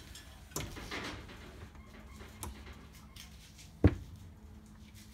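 A Scott Bonnar Model 45 cylinder mower being shifted and turned around on a workbench: a few brief scuffs and clatters, then one sharp knock a little under four seconds in.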